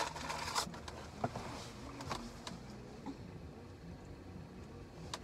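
Faint handling noise: a brief rustle at the start, then scattered light clicks and taps as the phone is moved about and the bracelet is worked off the wrist.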